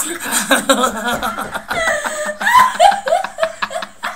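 A young woman laughing hard, in a run of short bursts that fall in pitch.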